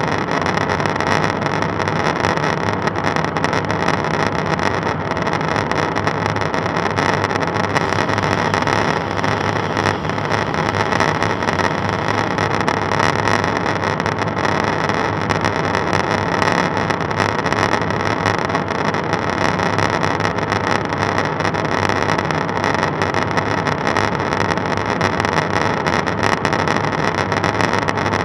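Steady in-flight cabin noise of a KC-135 Stratotanker, heard from inside the boom operator's station: an even rush of engine and airflow noise with a constant hum, unchanging throughout.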